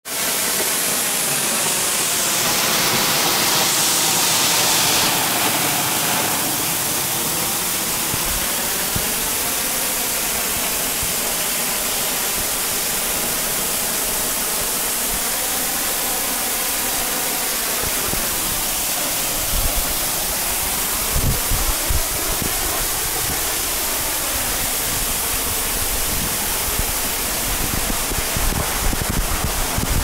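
Waterfall pouring off a sandstone overhang and splashing below: a steady, loud hiss of falling water. Irregular low bumps on the microphone come in during the second half.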